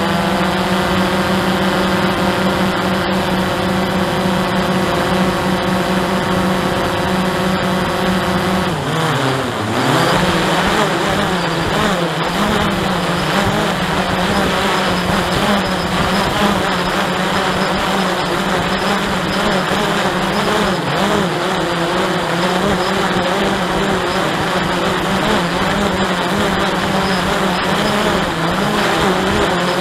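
Hubsan 109 quadcopter's electric motors and propellers running in flight, a steady buzzing whine. About nine seconds in the pitch dips sharply and comes back, then wavers with throttle changes for the rest of the time.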